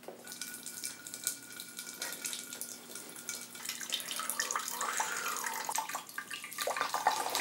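Red wine pouring in a steady stream from the tap of a bag-in-box, getting a little louder toward the end.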